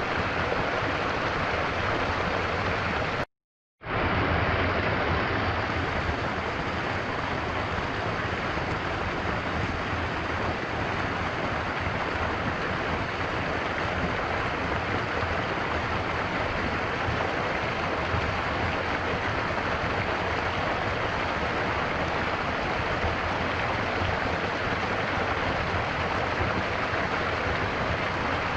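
Stream flowing: a steady, even rush of water, cut off to silence for about half a second about three seconds in, then running on unchanged.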